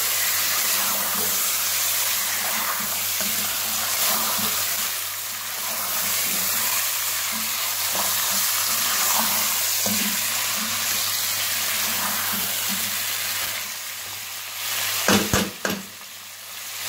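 Raw chicken wings sizzling in hot oil and masala in a pan as they are stirred and fried. A few sharp knocks sound near the end.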